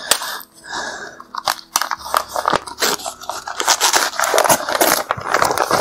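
Newspaper wrapping crinkling and tearing as a parcel is opened by hand, a dense run of crackles and rustles.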